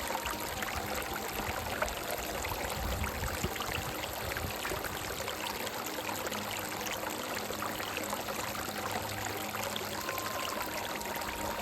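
A stream running over rocks, a steady rushing and splashing of water. A faint, soft melody of long held notes sits underneath.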